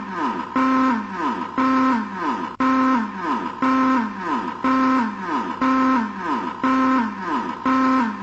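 Emergency alert alarm signal: a held electronic tone that then slides down in pitch, repeating about once a second.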